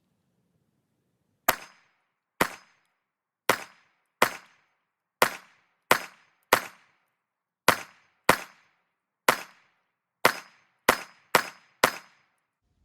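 About fourteen 9mm shots from a Glock slimline pistol, fired one at a time at a steady slow pace, roughly half a second to a second apart, as a 15-round magazine is run.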